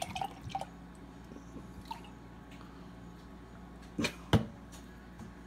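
Stout draining from an upturned coconut through a small spout into a glass, a faint trickle with a few soft drips at the start. Two sharp knocks, about four seconds in, are the loudest sounds.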